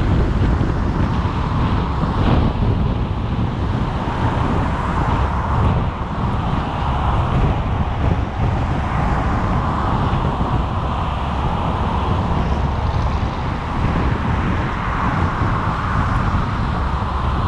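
Steady road traffic noise: motor vehicles going by with a continuous low rumble.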